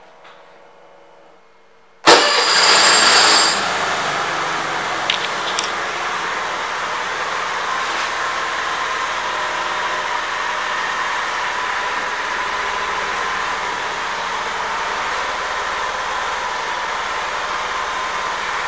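Vespa Primavera 50's small 49cc four-stroke single-cylinder engine started about two seconds in, louder for the first second or so, then idling steadily.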